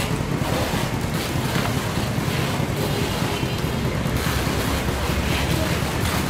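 Water sloshing and splashing in a truck's live-fish tank holding sturgeon, over a steady low rumble.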